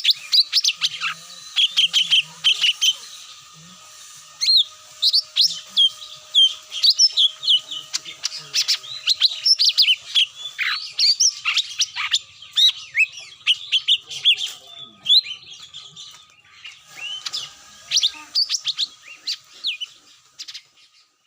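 Lure recording of cucak mini calls: a busy stream of rapid chirps and short, sharp whistled notes, played to call the birds down. The calling breaks off abruptly near the end.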